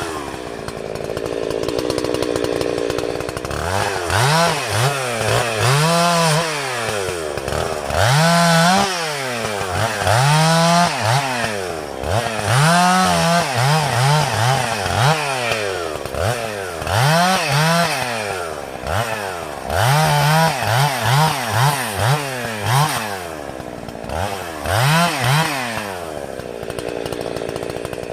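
Chainsaw idling, then revved up and let back down again and again in short bursts, some in quick succession, before settling back to idle near the end.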